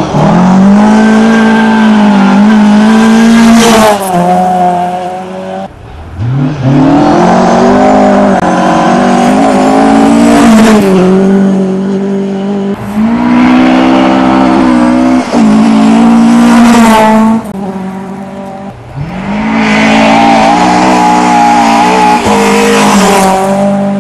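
Rally cars flat out on a gravel stage, four passes one after another. Each engine revs hard, rises and drops through gear changes, with a hiss of gravel under the tyres. The sound is very loud, close to overloading.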